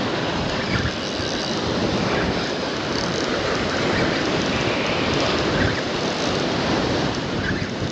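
Choppy surf washing and breaking against jetty rocks, with wind buffeting the microphone in a steady rushing roar.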